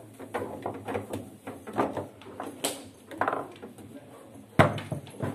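Table football being played: a rapid run of clacks and knocks from the ball and the plastic players striking it, with the rods rattling in the table, and one loud bang about four and a half seconds in.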